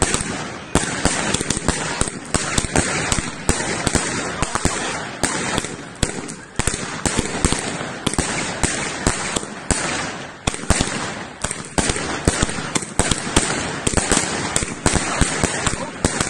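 Fireworks cake firing a fast, continuous barrage: a dense run of sharp bangs from launches and bursts overhead, several a second, with no pause.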